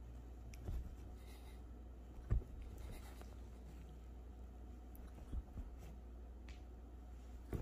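Soft rubbing and rustling on fabric couch cushions as a hand and a small dog move on them, with a few dull thumps, the loudest about two seconds in, over a low steady hum.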